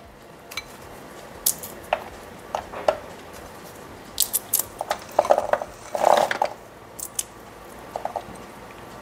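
Walnut pieces dropped by hand into a plastic food processor bowl onto dates: scattered light clicks and taps, most frequent about five to six seconds in.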